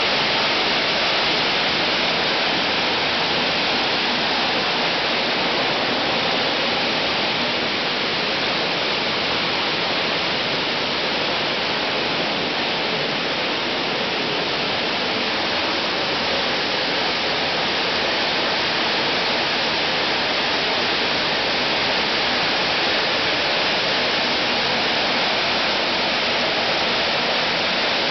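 Plastic-bottle label-removing machine running with bottles tumbling inside it: a loud, steady rushing noise that holds level throughout.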